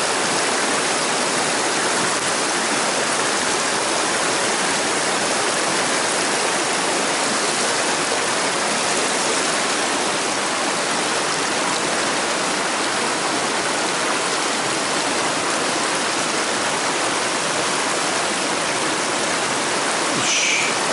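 Mountain stream rushing over rocks and through riffles: a steady, even rush of water.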